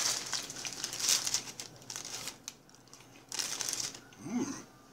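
Paper fast-food bag crinkling and rustling as it is handled and opened, in several spells with quieter gaps.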